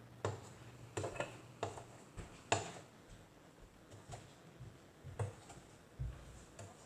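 A spoon stirring the no-bake cookie mixture in a saucepan on the stove, giving faint, irregular clicks and knocks against the pan about once a second.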